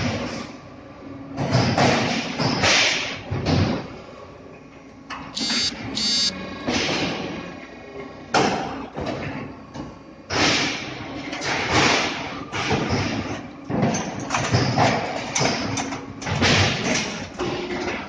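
A 200-ton hydraulic fly ash brick press and its pallet handling at work: a series of heavy thuds and clanks at irregular intervals, with two short high tones about five and a half seconds in.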